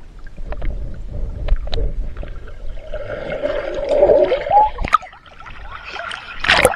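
Muffled underwater rumble and gurgling of water with scattered small clicks and bubbles, heard through an action camera's waterproof housing held under the water. A wavering muffled tone rises in the middle, and a loud sudden splash-like burst comes near the end.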